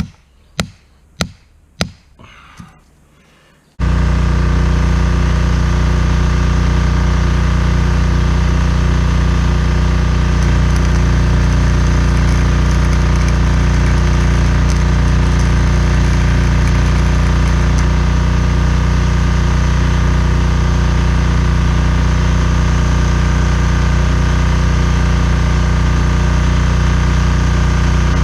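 A 2-pound hammer striking metal, about two blows a second, driving rebar into a pipe section; about four seconds in the blows stop and a loud, steady mechanical hum with an even pitch cuts in abruptly and runs on unchanged.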